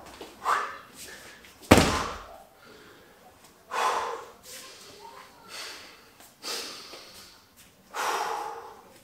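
A Suples Bulgarian bag dropped onto a padded mat floor with a single heavy thud about two seconds in. This is followed by a man's hard breathing, several loud snorting exhalations as he recovers from the exercise.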